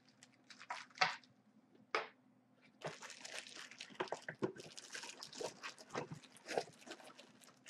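Plastic packaging bags crinkling and rustling as hands grip and shift the bagged radiator and tubing of a liquid CPU cooler in its cardboard tray. A few separate crackles come in the first two seconds, then steady crinkling from about three seconds in.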